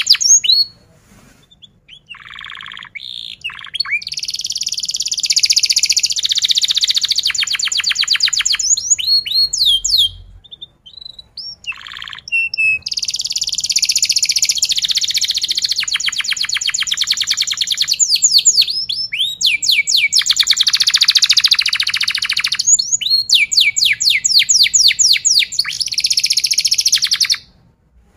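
Domestic canary singing: fast rolling trills of rapidly repeated notes mixed with quick rising and falling whistles. It sings in long phrases, one from about four to ten seconds in and a longer one from about thirteen seconds to near the end, with short quiet gaps between them.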